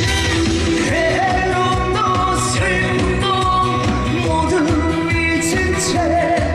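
Live Korean trot song: a singer's voice holding and bending long notes over a full band backing with a steady beat.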